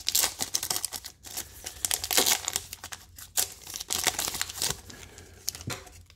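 Plastic wrapper of a pack of baseball cards crinkling and tearing as it is ripped open and the cards slid out, a dense run of crackles that thins out near the end.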